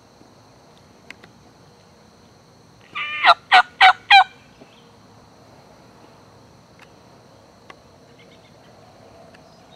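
Wild turkey gobbler gobbling once, about three seconds in: a short lead-in followed by a fast rattle of four loud notes.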